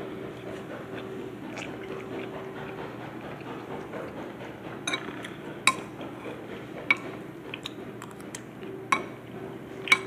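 A metal spoon clinks and scrapes against a bowl while someone eats, with about six sharp clicks spread over the second half. A faint steady hum runs underneath.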